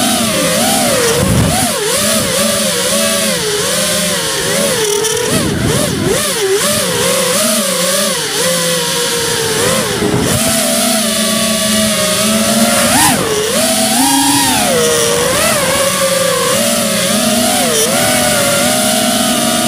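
FPV quadcopter's electric motors and propellers buzzing, heard close up from its onboard camera, the pitch swooping up and down constantly with the throttle.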